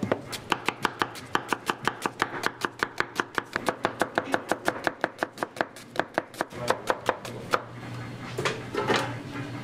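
Chef's knife slicing onion halves on a plastic cutting board: a quick, even run of knife strikes, about five or six a second, that stops about seven and a half seconds in. It is followed by the soft rustle of the sliced onion being gathered up by hand.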